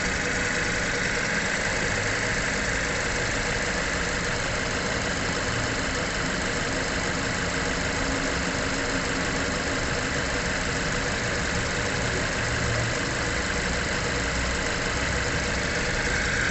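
Mazda 3's engine idling steadily.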